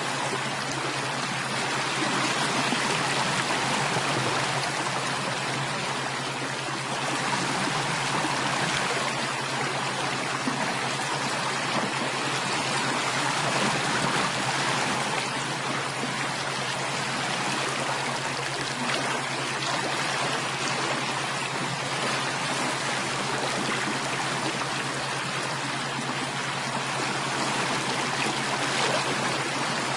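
Running water of a stream flowing steadily, an even rushing with no pauses, over a steady low hum.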